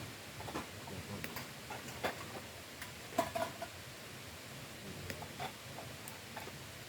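Campfire of damp cedar logs crackling, with irregular sharp pops and snaps; the popping comes from water in the wood.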